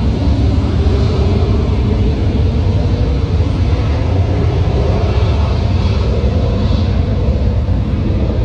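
Airplane taking off, its engines at takeoff power: a loud, steady, deep rumble with a hiss above it.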